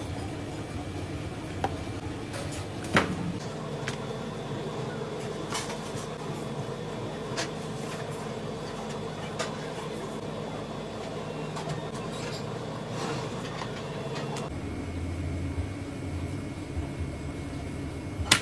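Knife knocking and tapping against a plastic cutting board as a large fish is cut up and skinned, a few sharp knocks at irregular intervals, the loudest about three seconds in. A steady mechanical hum runs underneath and shifts in tone near the end.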